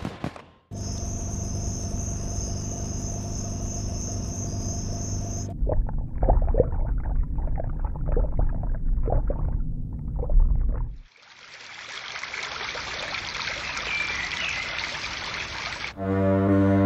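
A string of separate sound effects. First a steady hum with a high whine. Then bubbling and gurgling water sounds over a low rumble, then an even hiss. Near the end a deep horn starts up.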